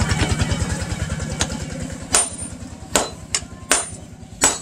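Sledgehammer blows on red-hot axe steel over a steel post anvil: about six sharp, ringing strikes, roughly one every 0.7 s. Under them the steady throb of a small engine fades out by the end.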